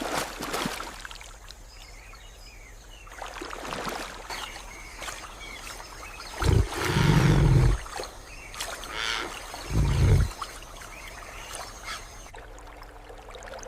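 River water splashing and sloshing, with two louder deep, low sounds about halfway through and again about ten seconds in.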